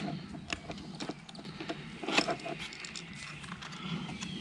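Scattered clicks and light knocks of a hard plastic fishing lure and its plastic packaging being handled, the loudest about two seconds in, over a low steady hum.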